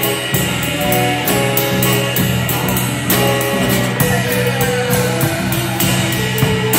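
A band playing jazz: a drum kit keeps time with regular cymbal strokes under a melodic lead line, with some sliding notes a little past the middle.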